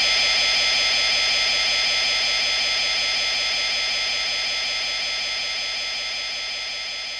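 Showa-era Mechagodzilla film sound effect: a sustained electronic tone with several steady high pitches sounding together, fading slowly away.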